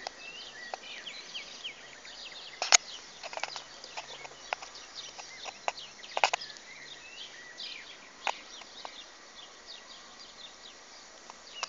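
Small birds chirping on and off, with a few sharp clicks, the loudest about three and six seconds in.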